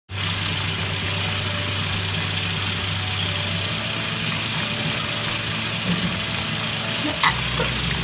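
A steady mechanical hum with an even hiss, with a short high squeak near the end.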